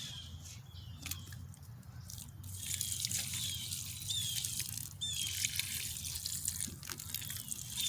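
Water dripping and trickling from freshly hand-watered plants.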